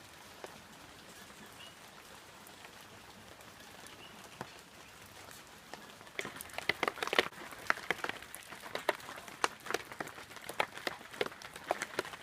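Tropical storm rain: a faint steady hiss, then from about halfway through heavy drops striking a hard surface in irregular sharp taps, several a second.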